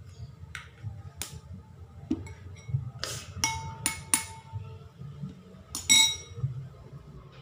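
A metal spoon clinking against a ceramic bowl while stirring, with a series of sharp, ringing knocks. The loudest comes about six seconds in.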